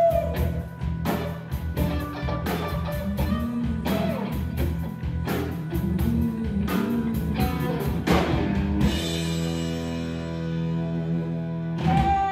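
Live rock band playing the closing bars of a song on electric guitars, bass, keyboard and drums. Drum hits carry on until about nine seconds in, then the band holds one long final chord, cut by a last loud hit near the end.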